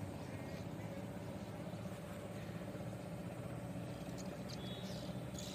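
Faint, steady hum of a running engine, with a few faint clicks between about four and five seconds in.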